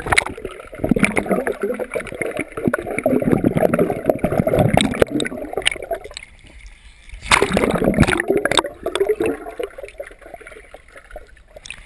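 Pool water heard underwater through a GoPro's waterproof housing: muffled gurgling, bubbling and churning with many small crackles, set off by a splash as the camera plunges under at the start. The churning is loudest from about a second in to six seconds, and again for a couple of seconds after seven.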